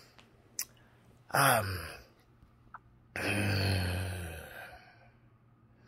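A man's wordless vocal sounds: a short, breathy sound falling in pitch about a second and a half in, then a long, low, breathy sigh that fades away.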